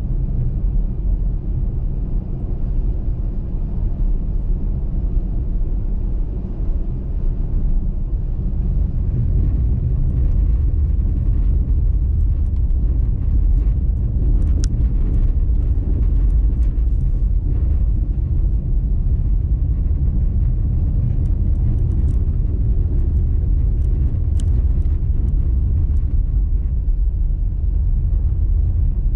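A car driving on a snowy motorway: a steady low rumble of tyres and engine. Faint scattered ticks come in from about a third of the way through.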